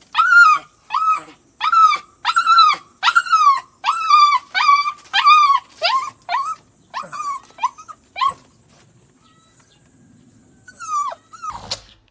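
A dog giving a run of short, high-pitched yips, about two a second, which stop about eight seconds in; two more follow near the end.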